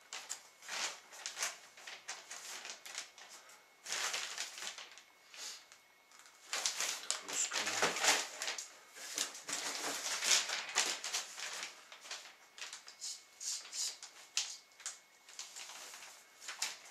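Clear plastic bag around a model-plane wing crinkling and rustling as it is handled and pulled about in its cardboard box, in irregular crackles, busiest through the middle.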